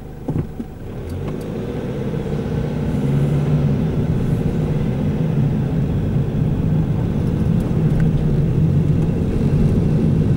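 Car engine and road noise heard from inside the cabin as the car pulls away and accelerates, rising over the first few seconds, then running steadily at speed. There is a brief knock just as it moves off.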